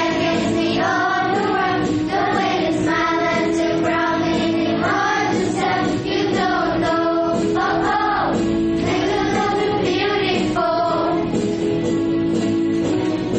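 A song sung by a choir with children's voices, over instrumental accompaniment.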